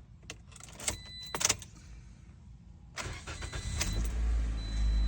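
A few clicks and knocks with a short high beep, then the 2019 Toyota Corolla's 1.8-litre four-cylinder engine cranks and starts about three seconds in and settles into a steady idle, with short beeps repeating over it. This is the first start after a fresh oil change.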